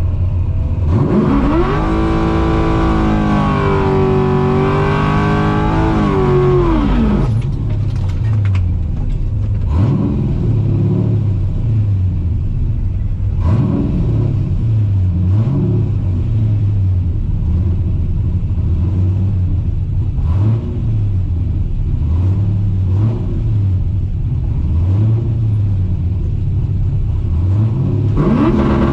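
Drag-racing 1968 Pontiac Firebird's engine: it revs up steeply about a second in and is held high for about five seconds, then drops back to a low, uneven run with repeated short throttle blips, and revs up steeply again near the end.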